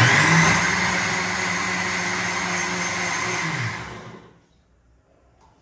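Electric mixer grinder running with its steel jar, grinding soaked moong dal with water into a batter. It starts abruptly, runs steadily for about three and a half seconds, then is switched off and winds down with a falling pitch.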